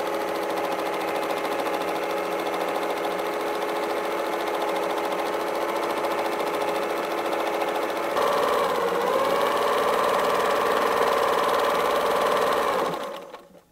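Sewing machine running steadily while free-motion quilting through a layered quilt sandwich. It gets a little louder about eight seconds in and stops about a second before the end.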